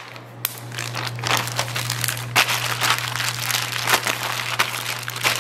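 A Ziploc plastic zip-top bag crinkling in quick, irregular crackles as hands squeeze and knead raw chicken with dry seasoning inside it.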